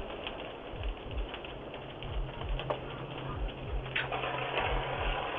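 House fire crackling and popping, heard through a doorbell camera's narrow, tinny microphone, over a run of low thuds about twice a second; a low steady hum joins about two seconds in.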